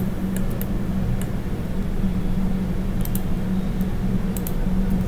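Steady low hum of the recording setup, with a scattered handful of faint, sharp clicks from computer mouse and keyboard input.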